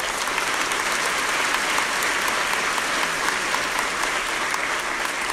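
Audience applauding: a dense, steady mass of hand claps that sets in at once and holds through.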